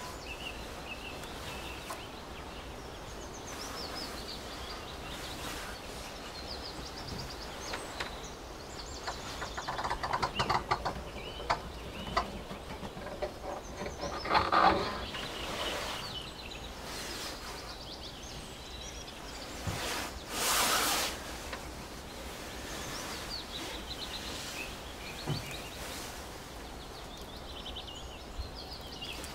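Open bog ambience: a steady background hiss with small birds chirping and singing throughout, a run of louder, rapidly repeated calls about ten and fifteen seconds in, and a brief rushing noise about twenty seconds in.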